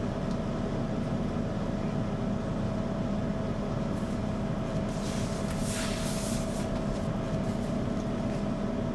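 Hair dryer running steadily, a motor hum with a steady whine under the rush of air, drying a cat's fur. About five seconds in, a louder hiss of air rises for a second or so and fades.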